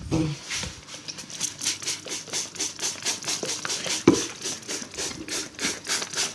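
Hand-pump trigger spray bottle misting water onto paper towel, squeezed over and over in quick even squirts, about three or four a second. A single knock about four seconds in.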